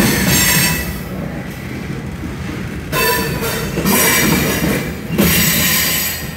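Freight train's covered hopper cars rolling past close by: steady rumble and rattle of wheels on the rail, swelling and easing as each car goes by. The last car clears near the end.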